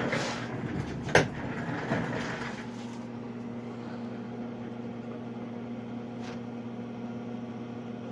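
Handling noise from working on the oxygen concentrator's casing after the new filter is fitted: rustling for the first few seconds and one sharp click about a second in, over a steady low hum.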